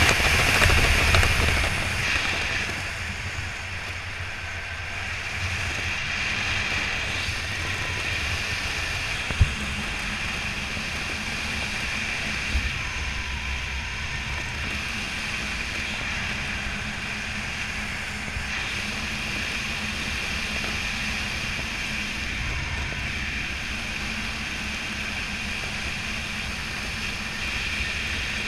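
Wind rushing over the microphone of a skydiver descending under an open parachute canopy, louder for the first two seconds, then steady. A single sharp click about nine seconds in.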